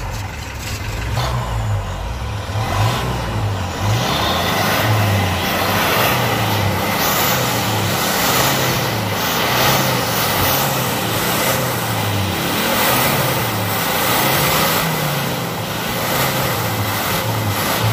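Car engine revved hard with the accelerator pedal, the revs rising and falling over and over, louder from about four seconds in.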